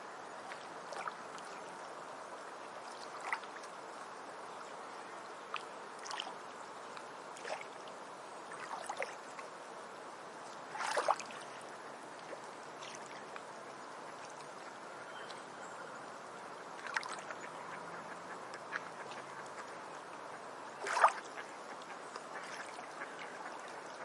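A stream trickling and gurgling steadily, with short sharp splashy sounds every few seconds; two louder ones come about halfway through and near the end.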